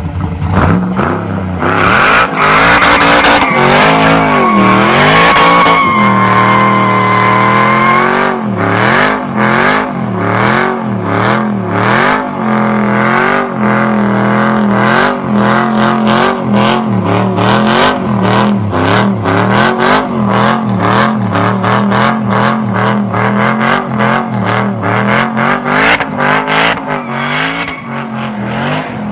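Pickup truck doing a burnout: the engine is held at high revs, rising and falling, while the spinning rear tyres squeal. A steady high squeal is strongest in the first few seconds, and a rapid crackling runs through the whole burnout.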